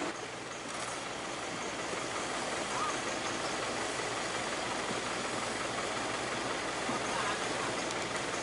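Heavy vehicle engine running steadily at a low, even pace.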